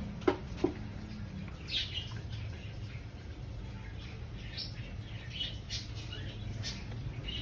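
Scattered faint bird chirps in the background. Two sharp clicks come in the first second.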